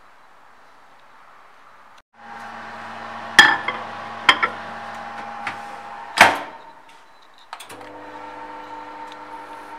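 Microwave oven being loaded and started: a glass bowl of chocolate chips knocks against the inside, the door shuts with a loud clunk, a few clicks from the start button, then the oven runs with a steady hum.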